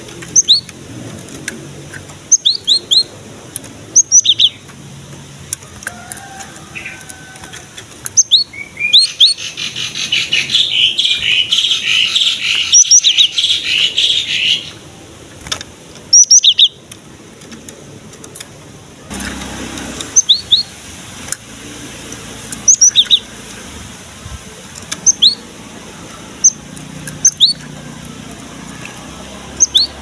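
Cinereous tit (gelatik batu) calling in full voice: sharp, short, rising high chirps, often in pairs, repeated every couple of seconds, with a dense run of rapid chattering notes lasting about five seconds a third of the way in.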